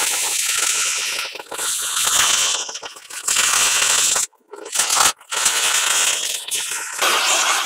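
Oxy-fuel cutting torch cutting through 4-inch-thick steel plate: a loud steady hiss of the cutting jet with crackling from sparks and molten slag. The sound drops out briefly twice a little past the middle.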